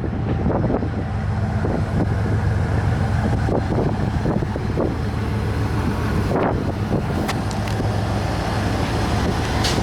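1993 Ford Lightning's 5.8-litre V8 engine running steadily, with a few short clicks over it.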